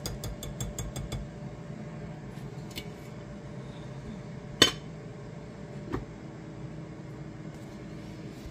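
A wire whisk clinking rapidly against a glass mixing bowl of thick batter for about a second. Then two single sharp clinks, the louder about halfway through, as a steel-rimmed lid is set over the bowl, all over a faint steady hum.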